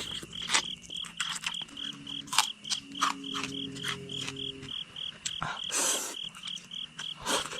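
A high chirp repeating steadily about four times a second, typical of a cricket or frog, under scattered wet clicks and smacks of someone eating spicy food, with a brief low hum from about two to five seconds in.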